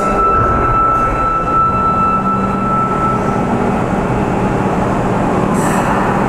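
Sapporo subway 9000-series train standing at the station platform just before pulling out, with a steady hum. A high steady tone stops about three seconds in, and a brief hiss comes near the end.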